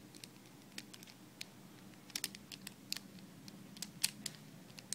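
Hard plastic puzzle pieces of a 4x4x6 twisty cube clicking and tapping irregularly as an edge piece is handled and clipped into place, with the sharpest click about four seconds in.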